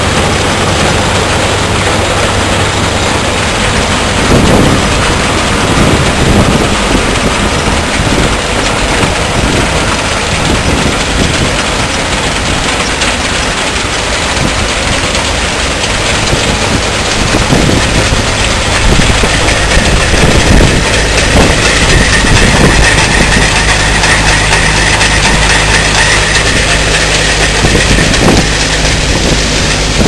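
Antique belt-driven threshing machine running at work while being fed bundles of wheat: a loud, steady mechanical clatter and rush from the threshing cylinder and straw blower, over the hum of the tractor engine driving the belt. A steady higher whine joins in past the middle.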